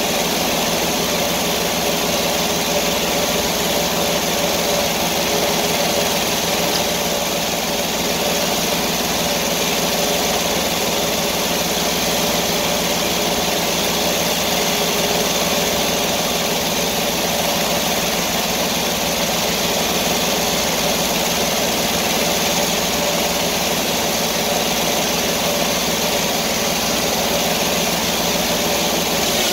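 Sawmill's engine running steadily at an even speed.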